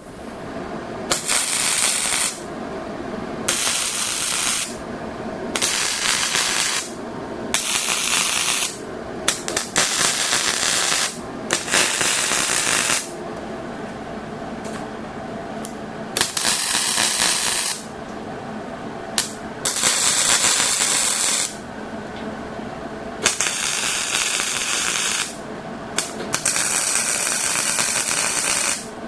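Welding on steel tubing: about ten short welds, each a second or two of loud hissing, with brief pauses between them over a steady background hum.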